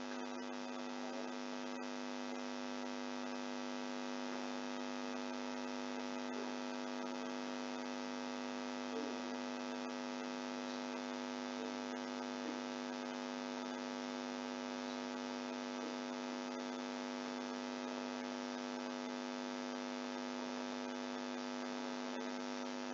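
Steady electrical mains hum on the recording: an unchanging buzzing drone with many overtones.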